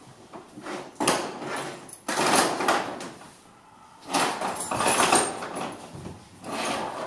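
Scraping and rattling of objects being handled and shifted on a ledge, in four bursts of about a second each with short pauses between.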